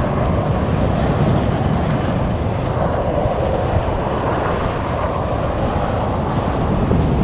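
Airbus A321neo's Pratt & Whitney geared-turbofan engines running at low taxi power, a steady low hum, with wind buffeting the microphone.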